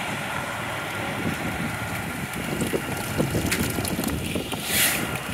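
Fire engine's diesel engine running as the truck pulls slowly past, with wind buffeting the microphone. A short hiss sounds near the end.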